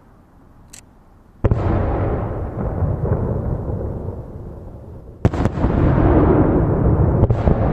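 Aerial firework shells bursting. A faint crack comes first, then a sharp bang about a second and a half in, its rumble dying away over several seconds. A second bang follows about five seconds in, with more rumbling and smaller cracks.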